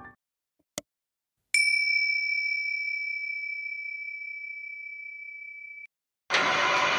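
Subscribe-button sound effect: a single mouse click, then a bell ding that rings out, fading, for about four seconds before cutting off. Near the end, loud noise of a wood-turning lathe at work cuts in.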